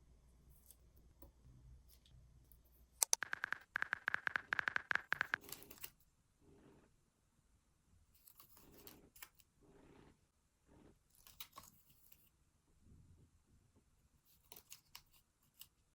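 Stickers being peeled from their backing sheet and handled on paper: a quick crackling peel from about three seconds in lasting roughly three seconds, then soft scattered rustles and taps.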